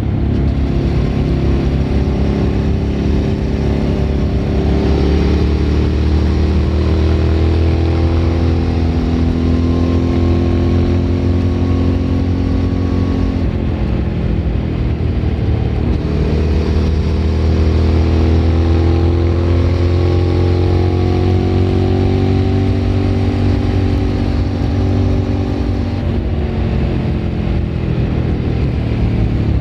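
Suzuki V-Strom 1000 V-twin engine through a Remus aftermarket exhaust, heard onboard while riding. It pulls with a steadily rising pitch, and drops back at gear changes about halfway through and near the end.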